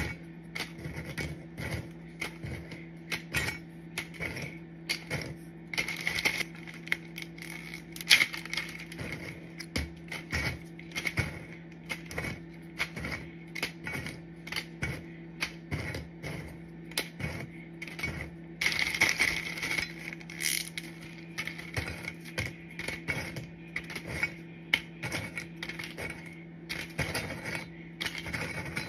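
Small hard snack crackers clicking against a stainless steel mixing bowl and against each other as they are picked out by hand and dropped into a plastic zip-top bag: many irregular light taps, with the plastic bag crinkling. A steady low hum runs underneath.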